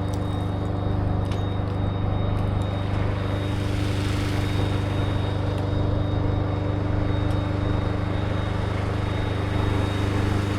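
The engine of heavy equipment running steadily at a constant speed, a loud low drone with a faint high whine above it.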